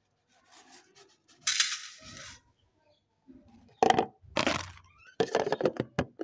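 Metal cookware clinking and rattling in several short, sharp bursts, loudest in the second half.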